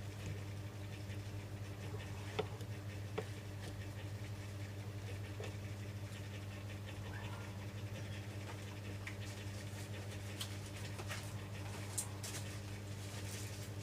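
Steady low electrical hum from bench equipment, with faint scratching and a few sharp small clicks of hand tools working on a phone during a glass repair.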